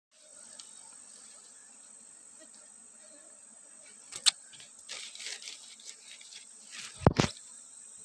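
Steady high-pitched insect drone, typical of crickets, with rustling and handling noise as the wooden box hive is worked; a sharp knock about four seconds in and a louder one about seven seconds in.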